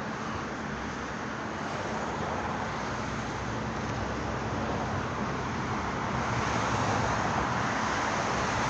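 Steady roar of multi-lane highway traffic, a continuous wash of passing cars with no single vehicle standing out, growing slightly louder about six seconds in.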